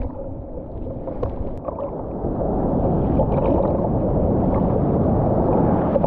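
Churning surf washing over a GoPro action camera, heard muffled through the water-covered microphone as a dull rush with scattered small ticks. It grows louder about two seconds in.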